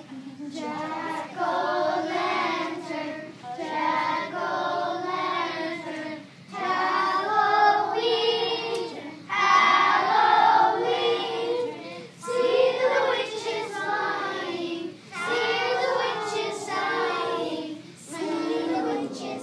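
A class of young children singing a song together, phrase by phrase with short breaks for breath between.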